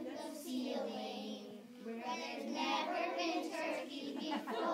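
A group of young children singing together. They break off briefly about a second and a half in, then carry on louder.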